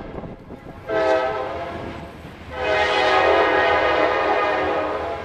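CSX freight locomotive horn sounding a chord of several notes in two blasts: a short one about a second in, then a longer one.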